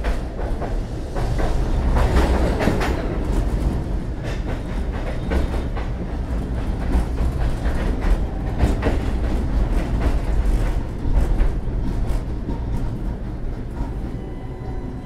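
Tatra T3 tram heard from inside the car as it runs along the track: a steady low rumble from the running gear, with rattling and repeated knocks from the wheels and body. It is loudest about two seconds in and eases off near the end.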